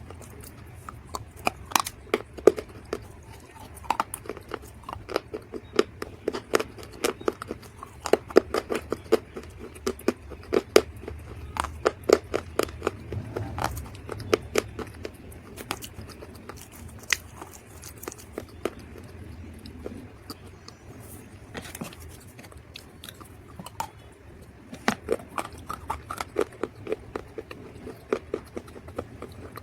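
Dried mud being crunched: clusters of crisp, rapid cracks and crackles with short pauses between them, lighter for a few seconds around the middle.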